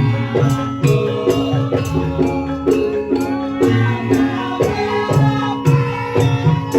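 Live Javanese gamelan music: hand-drum strokes in a quick, steady rhythm over ringing bronze metallophones and gongs.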